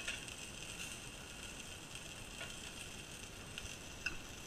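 Breadcrumbed pollock pieces frying in hot oil in a frying pan, a steady quiet sizzle. A couple of light clicks of metal tongs near the end.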